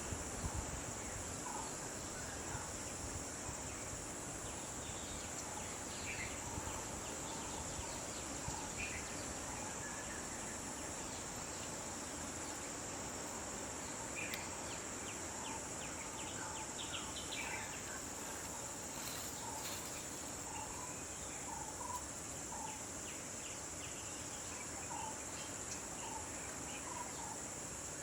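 Steady high-pitched chorus of insects in forest, with short bird chirps and calls scattered throughout.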